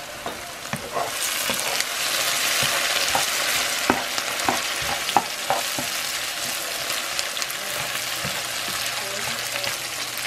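Sliced onions sizzling in a nonstick frying pan while a spatula stirs them, with scattered light clicks and scrapes of the spatula against the pan. The sizzle grows louder about a second in.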